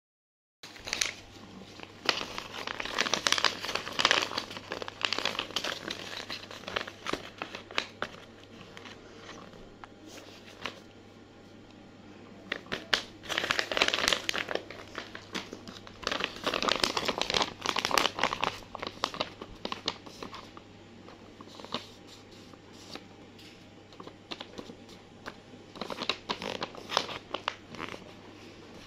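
Handmade paper blind bag crinkling and rustling as it is handled, in irregular bursts, over a steady low hum.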